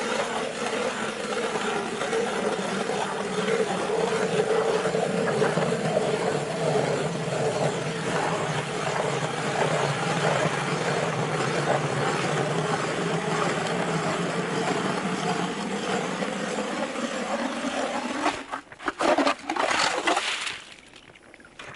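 Hand-cranked ice auger boring through lake ice, with a steady scraping grind as its blades cut. About eighteen seconds in, the bit breaks through and is pulled up out of the hole, giving a few irregular slushy splashes before the grinding stops.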